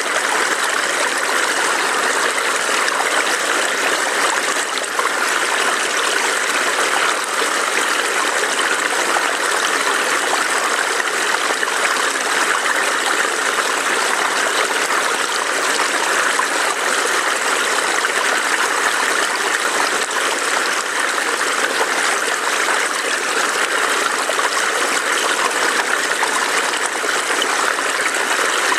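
A forest stream burbling over rocks: a steady, even rush of running water with no pauses.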